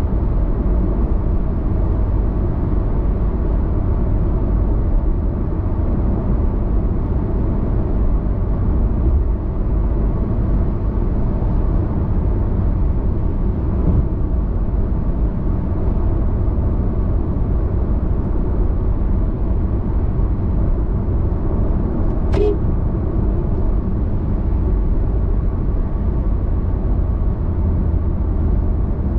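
Steady road noise of a car driving at highway speed: a continuous low rumble of tyres and engine. A single short click comes about three quarters of the way through.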